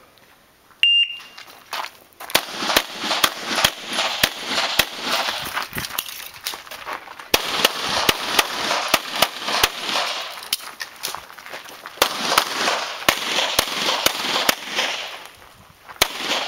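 An electronic shot timer gives one short high beep as the start signal. Then comes a long string of pistol shots from a CZ SP-01 Shadow: rapid shots in quick runs, with brief pauses around the seventh and twelfth seconds, and a last shot after a short gap near the end. Each shot rings on in echo.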